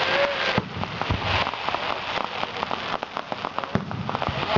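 Fireworks crackling overhead: a dense run of small rapid pops, with a few deeper bangs mixed in.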